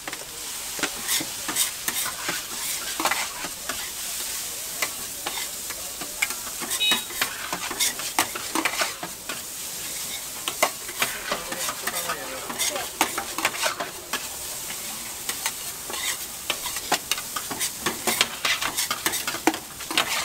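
Egg fried rice sizzling on a flat iron griddle while metal spatulas scrape and clack against the plate in quick, irregular strokes.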